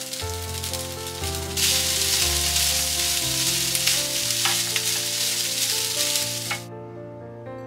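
Frozen fried rice sizzling in a hot square frying pan with no oil, stirred and scraped with a spatula. The sizzle comes in about a second and a half in and cuts off sharply near the end, with soft piano music underneath throughout.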